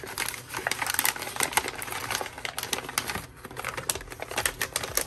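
Stiff white wrapping paper crinkling and rustling as it is unfolded by hand, a rapid, irregular crackle.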